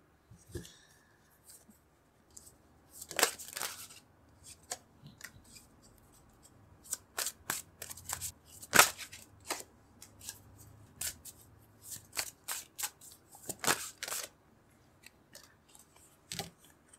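Tarot cards being drawn from the deck and laid onto the table spread: an irregular string of sharp card snaps and clicks, with a longer rustle about three seconds in.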